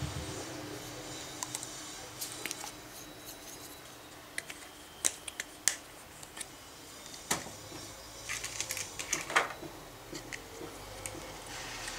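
Scattered light clicks and taps of a plastic Play-Doh tub and its lid being handled, with a few sharper clicks about five, seven and nine seconds in.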